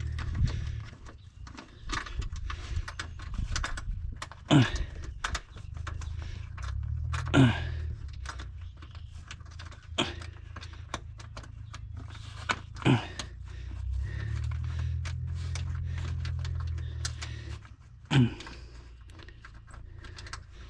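Hands working at parts and plastic fittings in the engine bay of a Ford Maverick: a few sharp clicks and creaks, some sliding down in pitch, over an on-and-off low rumble of handling noise.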